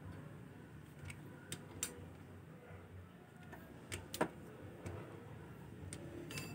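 Scattered light clicks and knocks of hands fitting hoses, connectors and clips onto a scooter's throttle body, the sharpest click about four seconds in, over a low steady hum.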